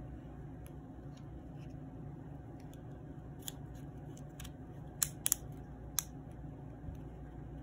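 Small plastic clicks of a Toyota key fob's parts being handled and pressed back together: a couple of faint taps, then three sharper clicks about five to six seconds in, over a low steady room hum.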